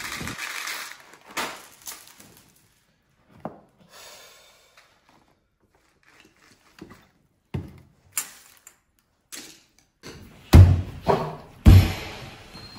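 Scattered taps and clicks of breakfast cereal rings and a cardboard milk carton handled on a tabletop. Several heavy thumps follow near the end.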